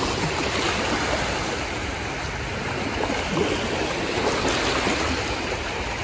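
Small waves lapping and breaking on a shallow sandy shore: a steady wash of surf.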